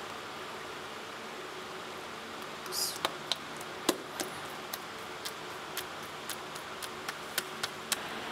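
Wood fire crackling in a clay tandoor: a steady hiss, then from about three seconds in a run of sharp, irregular pops and snaps, roughly two a second.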